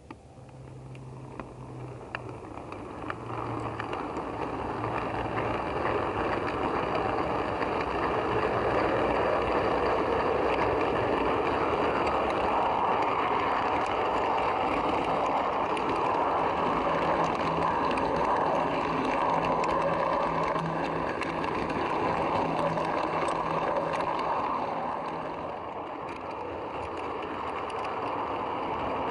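Model railway train, a model Black 5 locomotive hauling coaches, rolling along the track, heard from aboard one of the coaches: a steady rolling noise of wheels on rail. It builds as the train pulls away from the platform and gathers speed, then eases slightly near the end.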